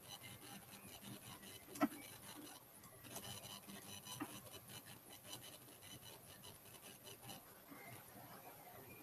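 Faint scratchy rubbing and scattered light clicks of drawing strokes being made at the computer, with one sharper click about two seconds in.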